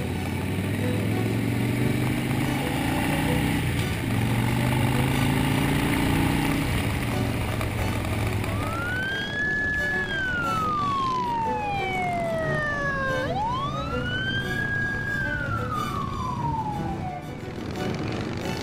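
Police escort vehicle's siren in wail mode, starting about halfway in: two slow sweeps, each rising to a high held tone and then gliding down.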